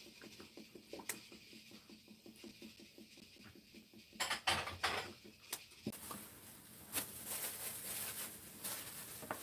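Quiet kitchen handling sounds: faint fine ticking, then a few knocks between about four and five and a half seconds in, then a steady rustling hiss from about six seconds on.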